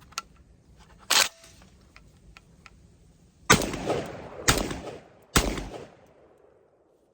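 Three 12-gauge shotgun shots from a Garaysar TR19S semi-automatic, a little under a second apart, each with a rolling echo, fired with low-powered Winchester White Box birdshot. About a second in there is a single sharp clack.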